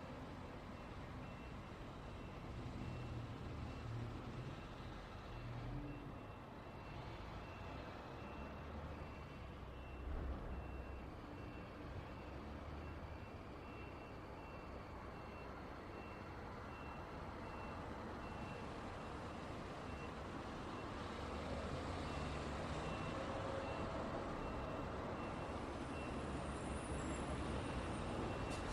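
Road traffic of cars and trucks passing, a steady rumble and tyre noise that swells briefly about ten seconds in and grows louder toward the end. A faint high electronic beep repeats at an even pace throughout.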